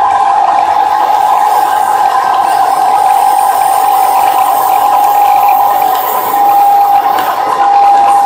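Odakyu 8000 series electric train running, a steady high whine over a continuous hiss of running noise. The whine turns patchy near the end.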